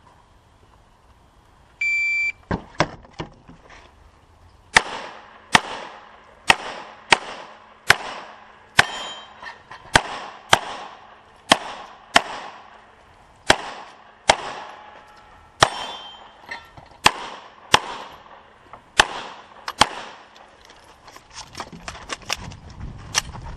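A range shot timer's start beep, then a pistol fired about twenty times in quick pairs and singles as a USPSA practical-shooting stage is run, each shot sharp and ringing. Quieter clicks and handling noise follow near the end.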